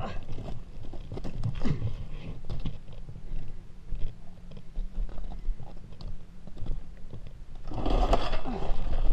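Boots crunching and scuffing on loose gravel and rock around a dropped dirt bike, in uneven steps, with a louder scraping rush about eight seconds in.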